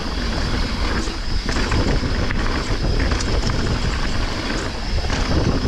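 Riding noise from a downhill mountain bike descending a stony dirt trail at speed: wind buffeting the helmet or chest camera's microphone and tyres rolling over dirt and loose stones, with scattered knocks from bumps.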